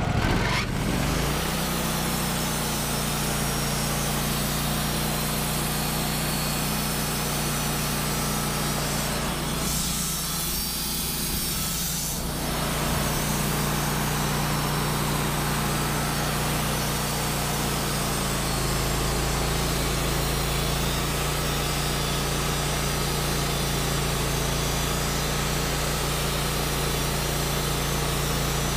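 Wood-Mizer LT15GO sawmill running on its 25 hp Kohler engine, its band blade sawing through a pine log. There is a brief change in the noise about ten seconds in.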